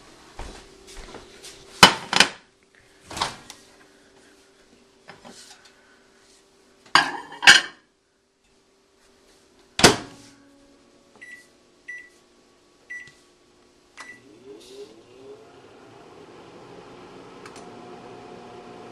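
A microwave oven is loaded and started: a few sharp knocks and clunks, then four short keypad beeps as the time is set. About fourteen seconds in, the oven starts running with a steady low hum that continues to the end.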